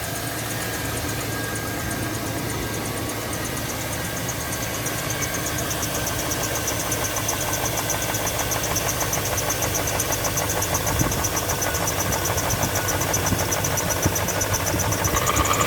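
2001 Chevy Tahoe's 5.3-litre LS V8 idling on a cold start, with a fast, even ticking from a noisy lifter. The owner says the noise clears once the engine has run a little.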